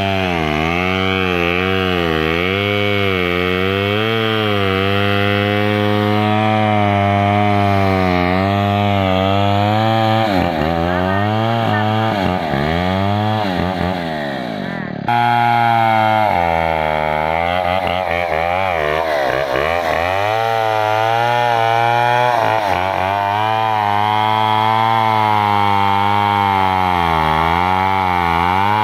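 Two-stroke chainsaw running under load as it cuts lengthwise through a felled oil palm trunk, its engine pitch rising and dipping as the chain bites into the wood. About halfway through it drops toward idle, then is suddenly back at full speed.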